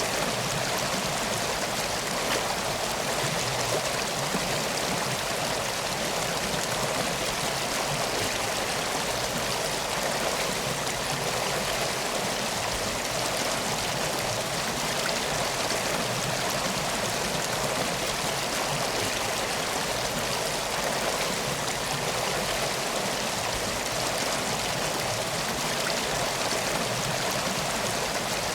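Steady rushing water ambience, even and unbroken, with faint scattered ticks through it.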